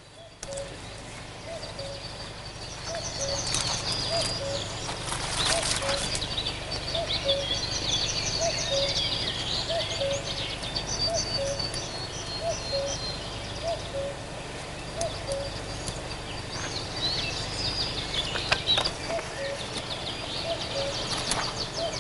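Birds singing: songbirds chirp and trill high up over a low call repeated steadily through the whole stretch.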